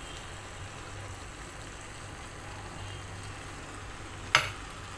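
Pan of sautéed string beans and shrimp sizzling softly as tamarind juice is poured in. One sharp knock about four seconds in.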